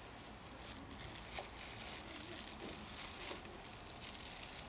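Plastic packaging wrap crinkling and rustling in uneven bursts as it is handled and pulled out of a cardboard box, busiest from about a second in.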